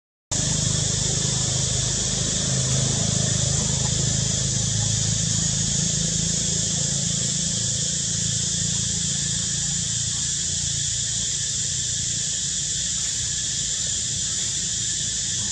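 Steady outdoor background sound: a continuous high-pitched drone with a low rumble underneath, the rumble easing after the first half, and no monkey calls.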